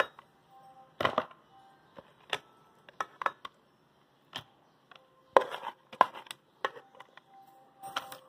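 A utensil scooping and scraping a dog-food mix of rice, vegetables and fish out of a bowl into plastic dishes, with separate knocks and clatters about once a second.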